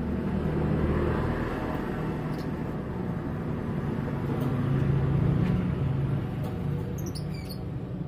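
A motor engine running steadily with a low rumble, its pitch shifting slightly as it speeds up and slows. Near the end, a few short high bird chirps.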